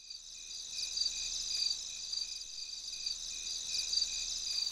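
Crickets chirping at night, a high-pitched chorus that pulses steadily.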